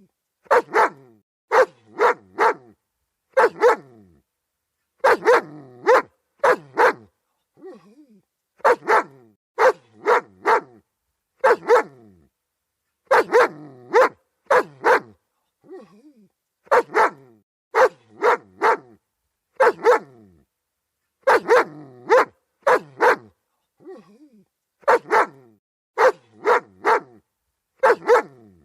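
German Shepherd dog barking repeatedly, in quick runs of two to four sharp barks with short pauses between.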